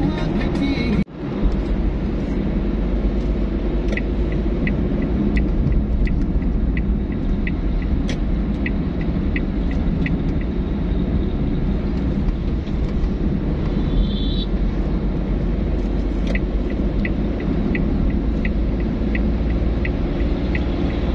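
Steady low rumble of a car's engine and tyres at highway speed, heard from inside the cabin. A turn-signal indicator ticks about one and a half times a second in two stretches, one around the overtaking of a truck.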